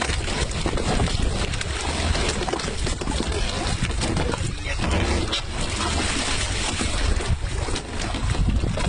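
Wind buffeting the microphone over the steady low rumble and water noise of a boat running on open sea.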